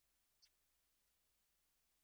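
Near silence, with one faint click about half a second in.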